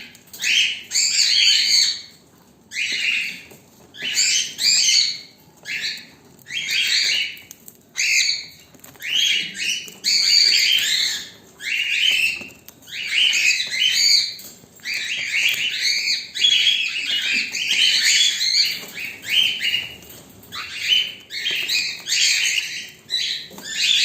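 Pet parrots squawking over and over in harsh, scratchy calls, about one a second with short gaps between.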